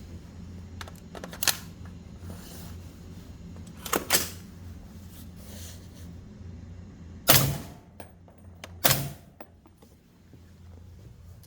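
Suppressed 300 Blackout rifle with an R2 suppressor firing 220-grain subsonic rounds: a handful of short, sharp shots spaced a couple of seconds apart, the last two the loudest and about a second and a half apart.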